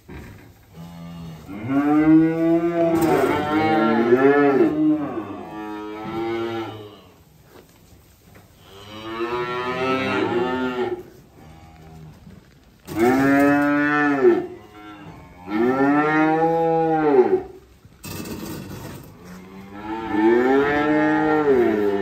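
Young Holstein cattle mooing: about five long calls, each rising and then falling in pitch, with short pauses between them.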